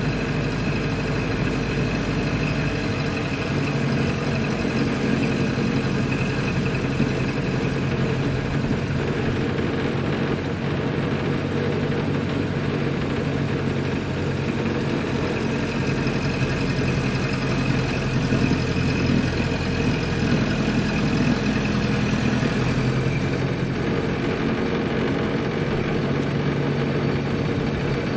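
Ford Model A's four-cylinder engine running steadily as the car is driven, its pitch shifting slightly a few seconds in and again near the end.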